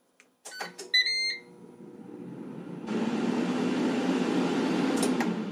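Ninja Foodi 2-basket air fryer being started: button clicks and a short beep from its control panel about a second in, then about three seconds in its fan starts and runs with a steady whoosh and low hum as cooking begins.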